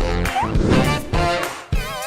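Upbeat cartoon background music with a bouncy beat, and a short rising whistle-like glide about half a second in.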